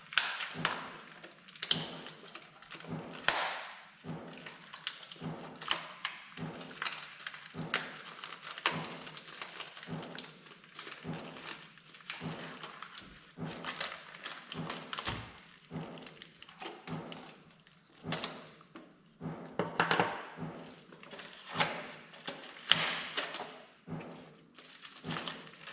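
Irregular knocks and clicks with some rustling as a metal UTV grab handle and its small screws are handled and taken out of their packaging.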